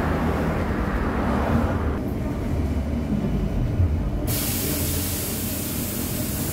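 Interior of a VMZ-5298.01 Avangard trolleybus coming to a halt at a stop: a low rumble with rolling noise that dies away about two seconds in as it stops. About four seconds in a sudden steady hiss of air starts as the doors open.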